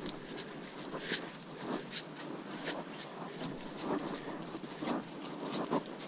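Footsteps on a leaf-strewn dirt trail at a steady walking pace, about one to two steps a second.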